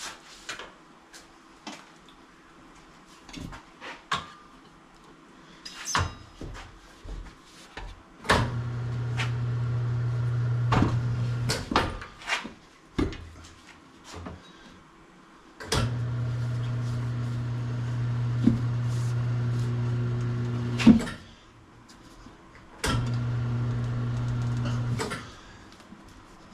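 Motorcycle tire changer's electric motor turning the wheel in three runs of a few seconds each, working the lubed tire bead over the rim. Sharp metal clanks and clicks from tools and the wheel come between and during the runs.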